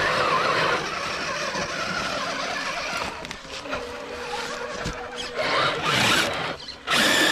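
A 1/10-scale RC crawler with an electric motor and gear transmission running over rough ground. It has a steady whine for about a second and a half midway and louder bursts near the end, under a constant rustling noise.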